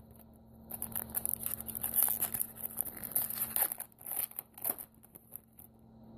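A trading-card pack's wrapper being torn open and crinkled, a run of crackling and tearing from about a second in until near five seconds.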